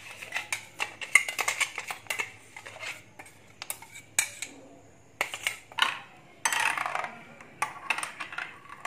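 Sharp plastic clicks and knocks as the mixer-grinder jar's lid is worked off, then the thin blended pudding batter is poured and scraped from the jar into a glass bowl in a longer stretch about two-thirds of the way through. A spoon knocks against the jar and bowl near the end.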